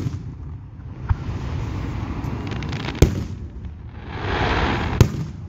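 Aerial firework shells bursting: two sharp booms about three and five seconds in, a fainter one about a second in, with a spell of hiss just before the last boom.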